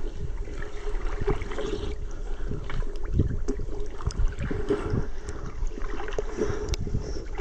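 Water lapping and sloshing right at the microphone, with irregular small splashes and dull knocks, as the camera moves along at the surface of a still river pool.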